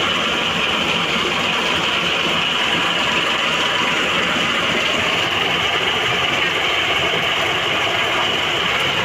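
Engine-driven corn sheller running with a steady, unbroken mechanical din.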